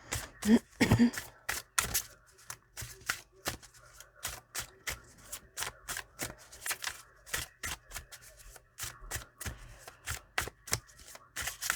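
A tarot deck being shuffled by hand: an irregular run of short, crisp card snaps and slaps, a few a second.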